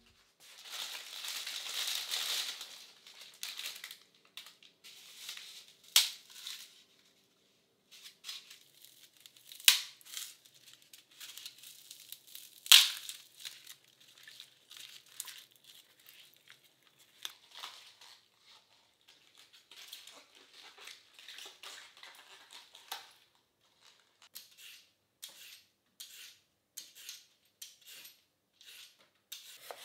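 Kitchen prep sounds: a plastic bag crinkling for a few seconds, a few sharp knocks, and quiet handling of dried Okinawan wheat-gluten rings (fu) soaking in a stainless steel bowl of water. Near the end a vegetable peeler scrapes down a carrot in quick strokes, about two a second.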